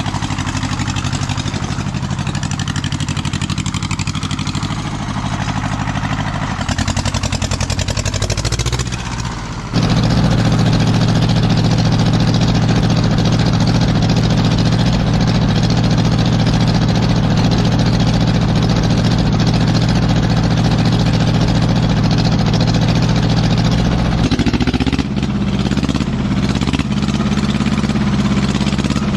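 Mitsubishi MT372 compact tractor's diesel engine running steadily while the tractor is driven. It gets abruptly louder about ten seconds in and eases back a little near the end.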